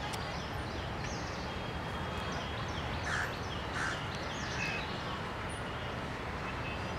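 Outdoor ambience: a steady background hiss with small birds chirping on and off, and two short harsh calls about three and four seconds in.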